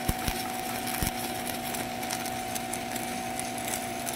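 Stick-welding arc crackling steadily as a 7018 electrode burns along a pipe joint, with a few sharp pops in the first second or so. A steady low hum runs underneath.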